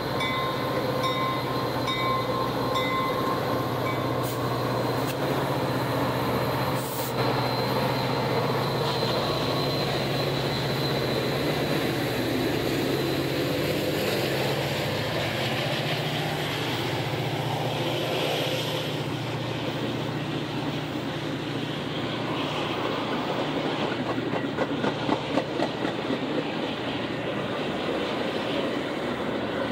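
Metra F40PH diesel locomotive passing close, its engine drone fading over the first half, followed by bilevel passenger coaches rolling by with steady wheel-on-rail noise. A repeated ringing sounds in the first few seconds, and the wheels click rhythmically over rail joints near the end.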